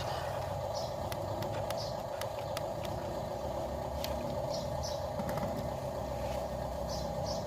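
A machine running steadily, with occasional light clicks.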